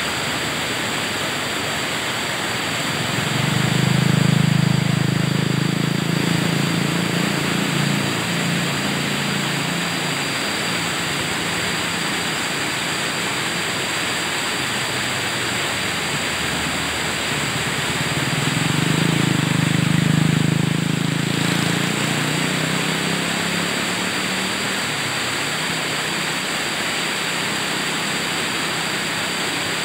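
River rapids rushing over boulders: a steady hiss of white water. A low engine-like drone rises and fades twice, about 3 and 18 seconds in.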